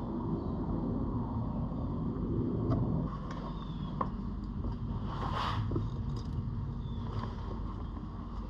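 Steady low rumble with a few sharp clicks and a brief hiss about five seconds in.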